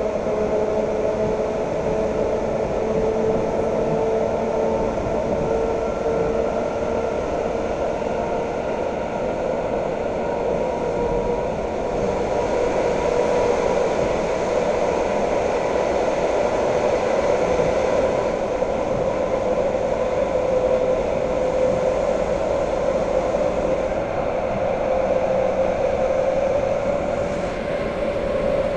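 Inside a Russian suburban electric train (elektrichka) running at speed: a steady rumble of wheels and running gear, with a motor whine that rises slowly in pitch as the train gathers speed.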